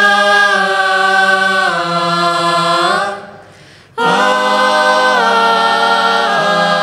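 A mixed group of seven men and women sings a Malayalam Christian song a cappella, holding long chords in harmony on a drawn-out vowel. The first chord fades about three seconds in. After a brief break, a second held chord starts and moves through a few pitch steps.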